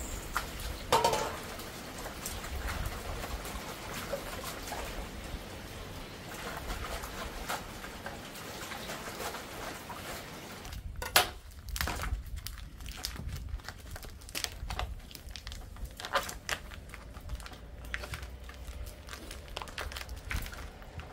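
Water splashing and dripping in a plastic basin as green onions are rinsed by hand, over a steady watery hiss. Then sharp clicks and crinkles of plastic food packaging being handled on a wooden table, the loudest click just after the change.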